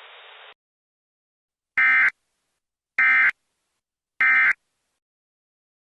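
Three short buzzy bursts of EAS SAME digital data tones, about a second and a quarter apart: the end-of-message signal that closes an Emergency Alert System warning.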